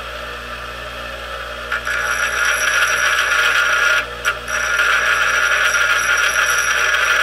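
Bench grinder running with a Briggs & Stratton flathead engine's exhaust valve stem tip pressed against the grinding wheel, a steady grinding hiss over the motor's hum. The grinding starts a couple of seconds in and breaks off briefly about four seconds in, as the stem is ground down a little at a time to open up the valve clearance.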